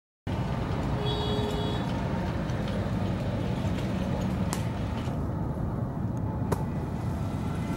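Steady low rumble of a river barge's engine running as the vessel moves along, with a couple of sharp clicks in the second half.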